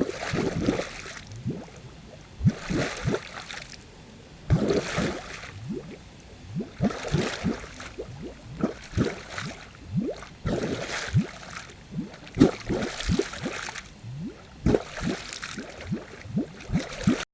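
Water bubbling: a dense, irregular run of bubbles gurgling up through water, each a short bloop rising in pitch, with splashy hiss between them.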